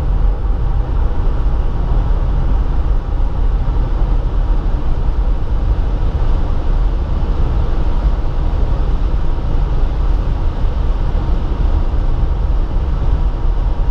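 Steady rush of tyre and wind noise inside a Tesla Model 3's cabin under hard acceleration from about 70 to over 100 mph. The noise is heaviest in the low end, with no engine note and no change in pitch.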